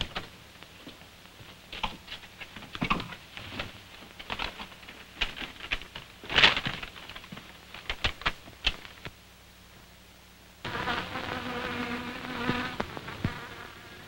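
A paper garment bag rustling and crackling as it is handled. About ten and a half seconds in, an insect-like buzzing starts as moths swarm out of the bag, and fades near the end.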